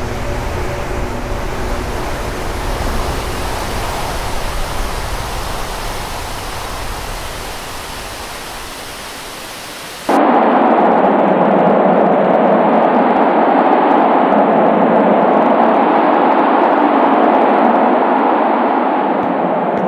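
Wind buffeting the microphone with a low, uneven rumble. About ten seconds in, it cuts abruptly to a louder, steady rushing noise.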